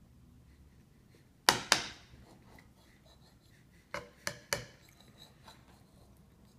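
Five sharp, hard clacks with brief ringing tails: two close together about a second and a half in, then three more in quick succession about four seconds in, with quiet room tone between.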